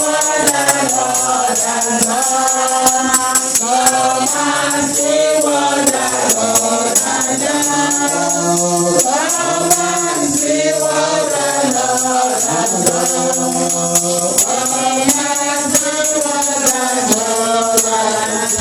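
Choir singing a song, with a tambourine shaken to a steady beat.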